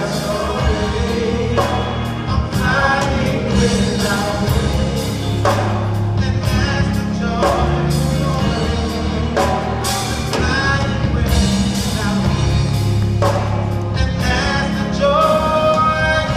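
Gospel-style song: singing with choir-like backing voices over a band with drums.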